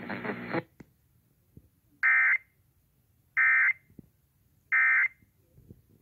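Emergency Alert System end-of-message signal: three short, identical bursts of screechy digital data tone, about a second and a half apart, marking the end of a tornado warning broadcast, heard through an FM radio's speaker.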